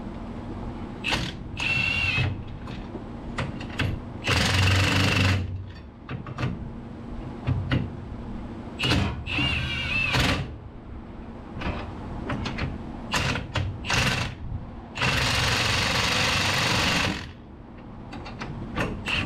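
Red cordless power driver running in short bursts of one to two seconds, about six times with the longest near the end, spinning down the nuts on new 22 mm leaf-spring U-bolts, with sharp clicks between the runs.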